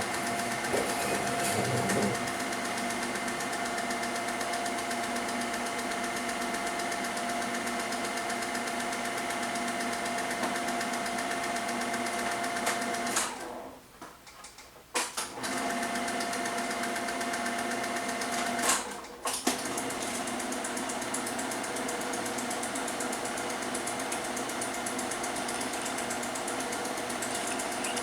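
Film projector running with a steady mechanical whir and clatter. It cuts out briefly about halfway through and again a few seconds later.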